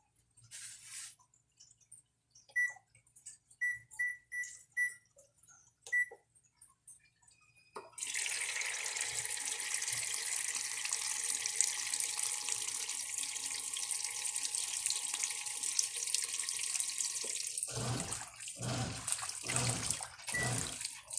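Brastemp electronic washing machine: about six short control-panel beeps, then water suddenly rushing in through the inlet valve with a steady hiss for about ten seconds, and a few uneven swishes and knocks near the end.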